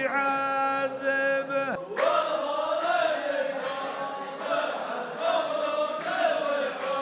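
A man's voice holds a chanted poetry line on a steady pitch, breaking off just before two seconds in. Then a line of men chants the verse in unison, clapping together about every three-quarters of a second, as the chorus (saff) of a Saudi muhawara poetry duel does.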